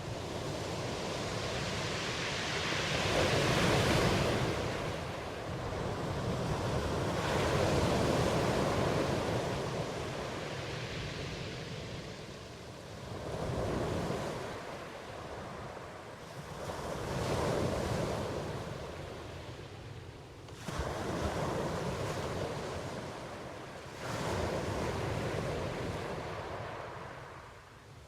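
Ocean waves breaking and washing on the shore, a swell of surf rising and falling every few seconds.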